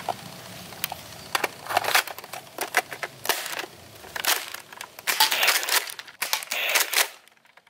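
Nerf Elite 2.0 Echo dart blaster being primed and fired: a string of sharp plastic clacks and snaps at an uneven pace as the priming slide is racked and darts are shot.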